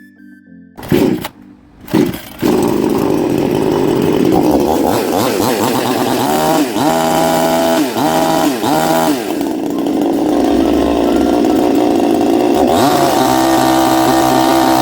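65cc two-stroke chainsaw, just fitted with a new cylinder kit, pull-started: two short pulls about a second apart, then it fires and keeps running. About six seconds in it is revved up and down several times, then runs on steadily, picking up speed again near the end.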